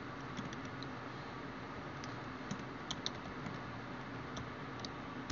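Quiet typing on a computer keyboard: scattered key clicks, a few louder ones close together midway, over a steady hiss.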